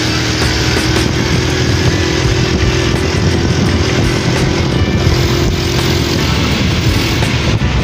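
Motorcycle engine running steadily as the bike cruises along, heard from on board, under a steady rushing noise.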